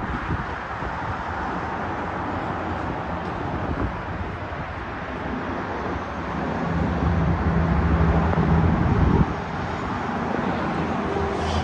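Steady noise of freeway and city traffic far below, heard from a high-rise balcony. A deeper engine drone swells about six seconds in and drops away suddenly about three seconds later.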